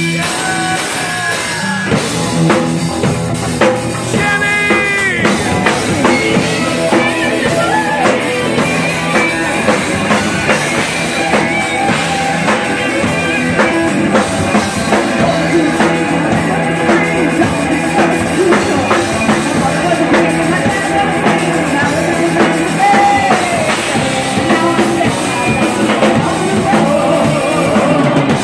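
A live rock band playing loudly: two electric guitars, bass guitar and a drum kit, with a woman singing lead.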